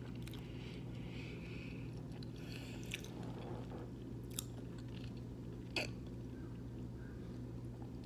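A person chewing a mouthful of pizza with a few short, wet mouth clicks, over a steady low hum.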